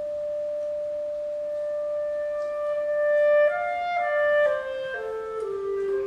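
Solo clarinet holding one long note, then playing a short run of notes stepping downward.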